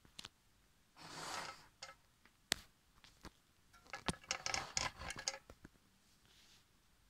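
Plastic and metal parts of a Predom Prexer slide projector being handled: a brief brushing rub, one sharp click, then a quick run of clicks and scrapes around the slide carrier slot.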